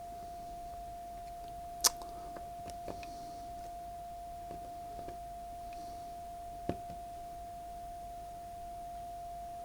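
A steady, unbroken test tone played back through an Akai GX-77 open-reel deck while its playback level is being calibrated. There is a sharp click about two seconds in and another near seven seconds.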